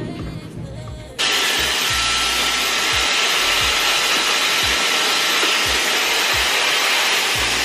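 Handheld hair dryer blowing, a steady loud rush of air that starts abruptly about a second in, with background music and its low beat underneath.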